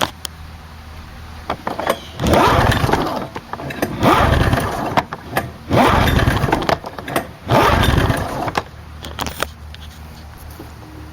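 1988 Arctic Cat El Tigre two-stroke twin snowmobile engine cranked over four times with its spark plugs out, without firing, each crank lasting about a second, for a compression test that reads about 150 psi on the left cylinder.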